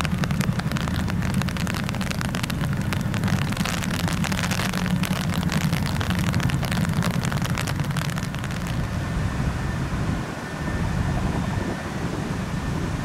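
Boeing CH-47 Chinook helicopter running, its tandem rotors giving a fast, heavy chop over a steady high whine from its turbine engines. The sharper chop eases off about eight and a half seconds in.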